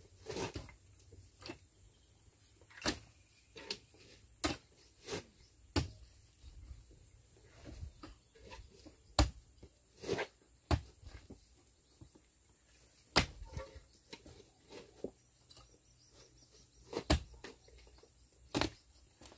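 Scattered sharp knocks and clicks, about a dozen at irregular intervals, with near quiet between them.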